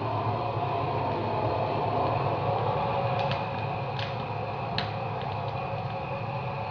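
Gas burner flame burning steadily inside a whisky barrel as its inside is re-charred, with a few sharp crackles from the charring staves about halfway through.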